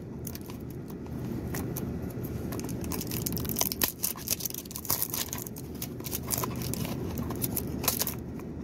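Cellophane wrapping crinkling and tearing as it is picked off a cardboard box, in many irregular crackles, over the steady low hum of a car's running engine and air conditioner inside the cabin.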